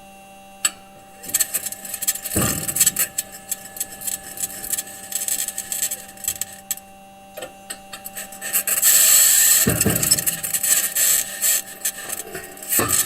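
Perseverance Mars rover's metal wheels crunching and scraping over rock, recorded by its own microphone. Irregular clicks, squeaks and scratchy grinding, loudest in a long grating stretch about nine seconds in, over a steady electrical hum.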